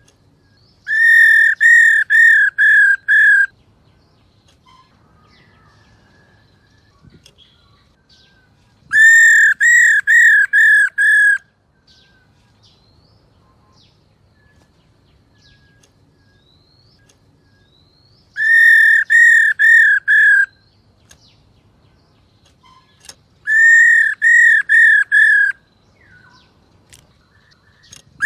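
Black-throated laughingthrush calling: four loud whistled phrases several seconds apart, each a run of about five identical, evenly spaced notes, with faint chirps in the gaps.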